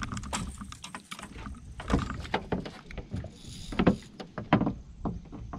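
Irregular knocks and clatter from fishing tackle being handled on a boat, with some splashing as a lure is pulled from the water.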